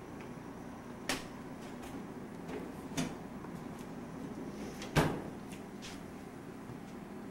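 Knocks and clunks of things being handled at a kitchen counter: three sharp knocks about one, three and five seconds in, the last the loudest, with a few lighter clicks between them.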